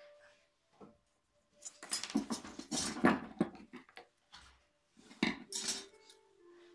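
Tools handled on a wooden workbench: a tape measure, scissors and a thin strip of tin-can metal clattering and clinking, in a busy burst about two seconds in and a shorter one about five seconds in.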